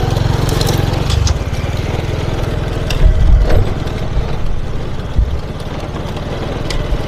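Small moped engine running steadily at low speed, with a few low thumps about three seconds in.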